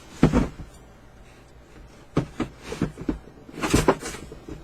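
Boxes and packaging being handled during unpacking: a thump about a quarter second in, a run of lighter knocks around two seconds in, and a louder rustling knock near the end.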